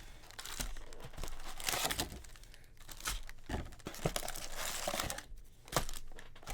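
Plastic foil wrapper of a Topps baseball card pack being torn open and crinkled: irregular rustling and crackling with short sharp crackles.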